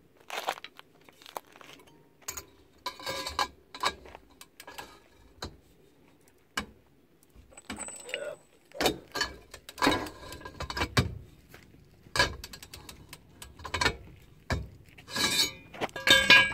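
Irregular metallic clinks, knocks and clatter of a long wrench, socket and extension bar being set on and worked against a trailer's hub centre nut. The loudest clatter comes about two-thirds of the way in and again near the end.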